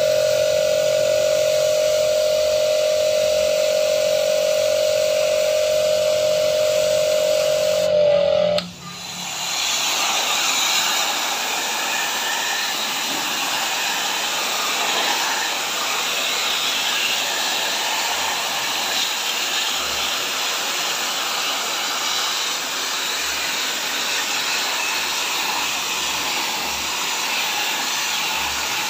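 Mollar HPW500 500-watt electric pressure washer running with a steady whine while its nozzle sprays a fine mist. About eight seconds in the whine drops away and a steady hiss of a fine water jet spraying into an air-conditioner coil's fins takes over.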